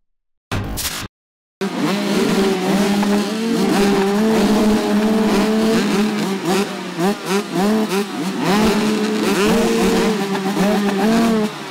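Several two-stroke motocross bikes running and revving, engines repeatedly blipped so the pitch rises and falls over a steady idle; the engine noise comes in about a second and a half in, after a short burst and a moment of silence.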